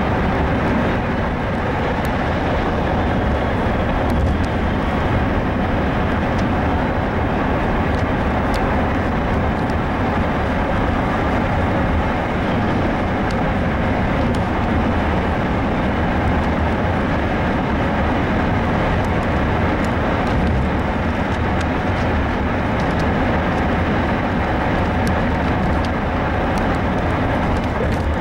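Freight train of intermodal container cars rolling past close by, a steady, unbroken rumble of wheels on rail.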